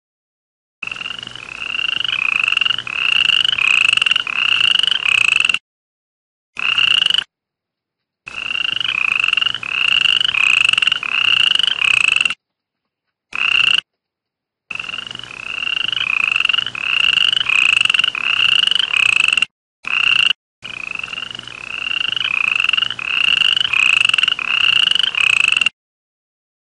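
A toad calling: short, slightly falling croaks repeated about twice a second in runs of several seconds, each run cutting off abruptly into silence before the next begins.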